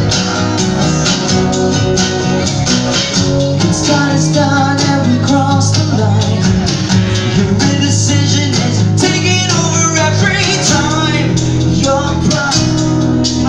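Live acoustic band performance: acoustic guitars strumming over a steady beat, with a male voice singing from a few seconds in.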